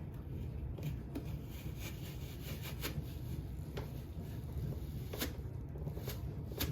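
Light handling noises: a few scattered soft clicks and rustles over a steady low hum.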